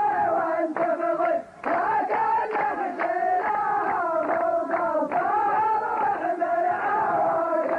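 Male chorus chanting a line of Arabic sung poetry in unison, in long drawn-out phrases with a short break about a second and a half in, over sharp strikes that fit hand claps.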